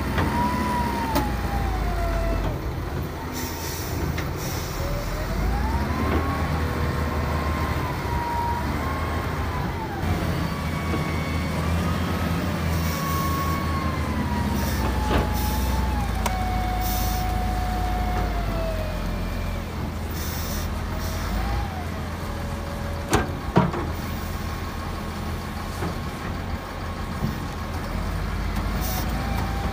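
Wheel loader's diesel engine working hard, its revs and a high whine rising and falling as it lifts and tips loads of sand. Two sharp knocks come late on.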